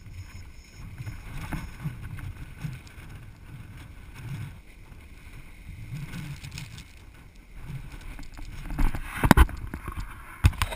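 Strong wind buffeting the microphone in an uneven, gusting low rumble, with a couple of sharp knocks near the end.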